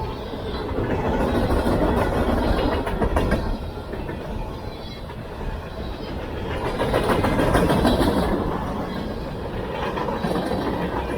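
Freight cars of a CSX mixed freight train rolling past close by: a steady rumble of steel wheels with clickety-clack over the rail joints. It swells louder about two seconds in and again around seven to eight seconds.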